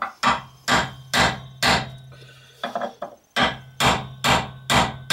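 Hammer striking a steel chisel on a ball joint retaining nut, about ten sharp blows at roughly two a second with a short pause midway, each with a brief metallic ring. The chisel is staking the nut so it will not back off.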